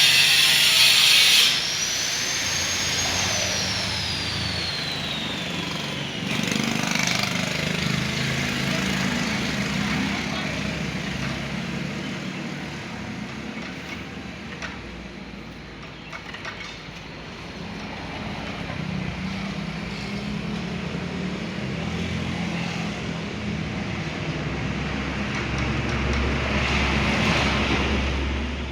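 Motor vehicles passing: a low rumble that swells and fades twice, with a high tone falling in pitch a few seconds in.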